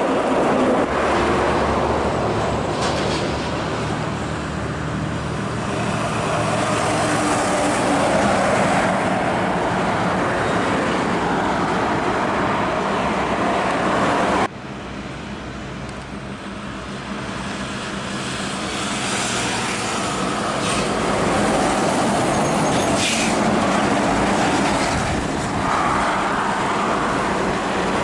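Heavy diesel trucks hauling loaded grain trailers, their engines pulling under load with tyre and road noise. The sound drops suddenly about halfway, then builds again as another truck passes.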